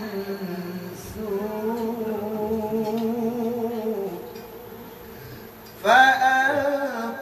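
Male voice reciting the Quran in tarannum style, holding one long melismatic phrase with a wavering pitch that fades out after about four seconds. Just before the end a second, louder and closer voice takes up the recitation.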